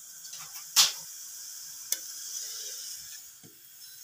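Rice-flour roti being turned over on a hot nonstick tawa: a sharp tap about a second in and a lighter click a second later, over a soft steady sizzle.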